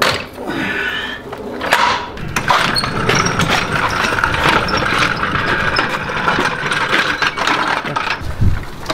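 Several seconds of rapid mechanical clicking and rattling, with a low thump near the end.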